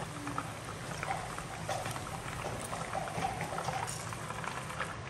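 Chicken pieces frying in hot oil in a wok: a steady sizzle with many small crackles and pops.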